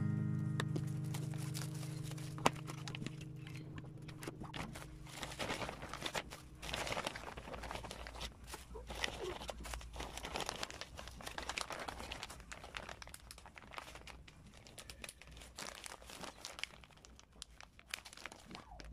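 Clear plastic bag and plastic clamshell crinkling and crackling as pastries are handled and packed into the bag. A held music chord fades out over the first few seconds before the crinkling takes over.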